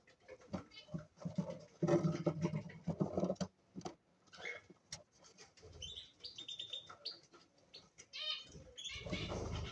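Cage birds chirping and calling, cockatiels among them, with short high chirps in the second half. A low cooing call comes about two to three seconds in, short clicks and taps sound in between, and a burst of rustling comes near the end.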